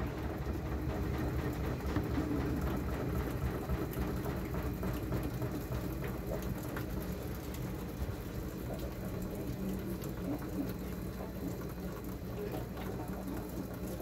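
Top-loading washing machine running a wash cycle: a steady motor hum with the swishing of the load churning in the drum.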